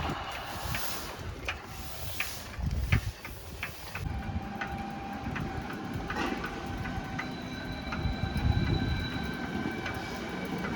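Road traffic rumbling past a moving bicycle, with many short, irregular clicks and rattles.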